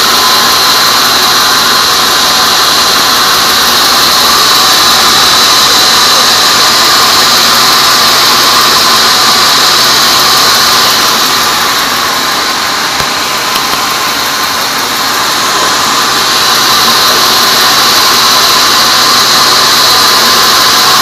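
Large band sawmill ripping a teak beam: a loud, steady hiss of the blade cutting through the wood over the running machine, with a steady high tone, easing slightly about midway before picking up again.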